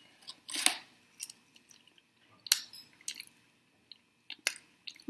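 Close-miked chewing of a crispy fried potato wedge: scattered, irregular crunches and wet mouth clicks.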